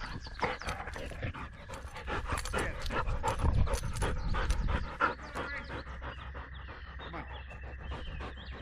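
A dog panting close to the microphone of a GoPro camera worn on its harness, with many irregular clicks and knocks.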